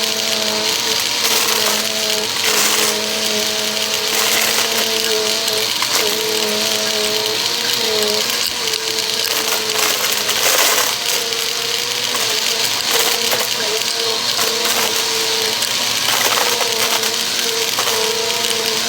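Vacuum cleaner running under suction: a steady motor whine that wavers and dips in pitch as the airflow changes, over a rush of air, with scattered crackles of debris being sucked up.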